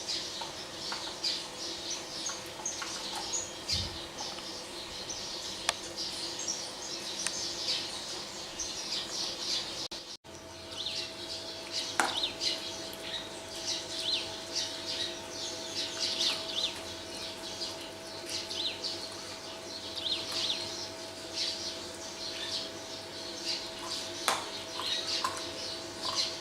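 Many birds chirping and twittering in a dense, continuous chorus over a faint steady hum. The sound drops out for an instant about ten seconds in.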